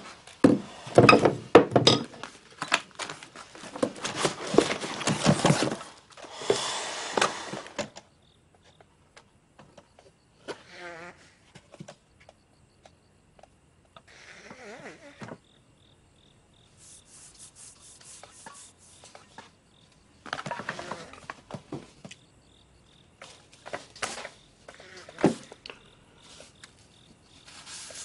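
Objects clattering and knocking as things are rummaged through for the first several seconds. Then comes quieter rustling of paper and notebook pages being handled and turned, with crickets chirping faintly behind.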